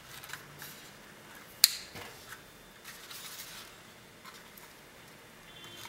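Faint handling sounds of fingers and a small stick working sticky candy dough in a plastic mould tray, with a few light ticks and one sharp click about a second and a half in.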